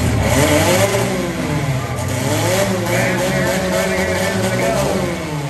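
Demolition derby vehicle engines revving hard, the pitch climbing and falling several times, with a rushing hiss over the first half or so.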